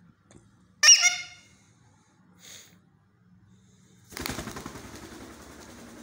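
An Alexandrine parakeet gives one short, loud call about a second in. From about four seconds in comes the rapid flutter of wingbeats as a parakeet takes off and flies.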